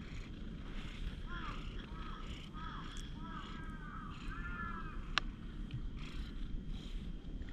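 Crows cawing: a string of short, arched calls, several overlapping toward the middle, over a low steady rumble. A single sharp click comes about five seconds in.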